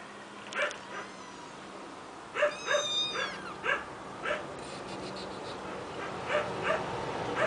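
Several kittens mewing in short, high, repeated calls, with a burst of overlapping mews and one longer mew about three seconds in; the kittens are begging for food.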